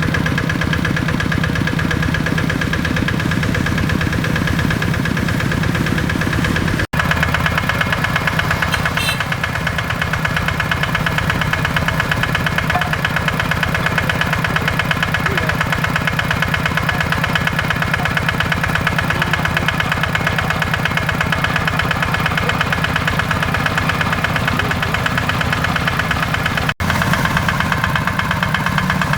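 Kubota RD85 DI-2S single-cylinder diesel engine of a hand tractor running steadily, with a fast, even firing beat. The sound cuts out for an instant twice.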